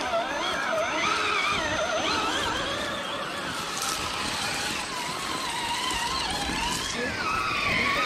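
Electric motors and gear drives of scale RC rock crawlers whining, the pitch wavering up and down as the throttle is worked on the climb.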